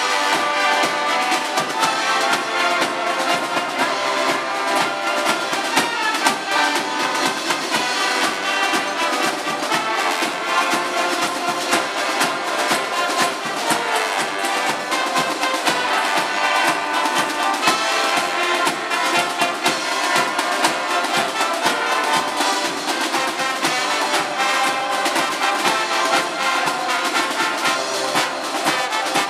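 A live brass band with trombones, upright brass horns and snare side drums playing a tune together, the drums keeping a steady beat under the brass.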